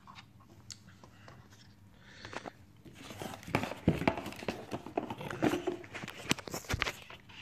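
Close handling noise: rustling, crackling and sharp clicks, starting about three seconds in, as the radio's packaging and parts are handled.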